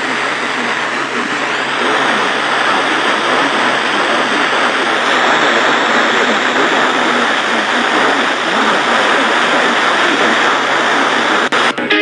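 Loud, steady hiss of static from a weather radio receiver, the sign of a weak signal. A few crackles and dropouts come near the end as the broadcast voice returns.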